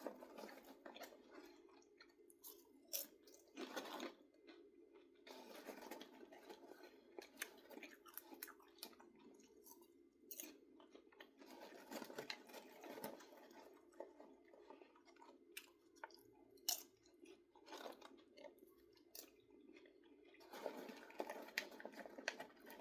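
Faint chewing of popcorn, with irregular soft crunches and clicks.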